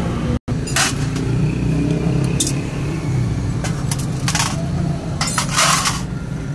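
Steady low rumble of an engine running in the background, with several short metallic clinks and scrapes as a screwdriver and carburetor parts knock against a steel pan. The sound drops out for an instant about half a second in.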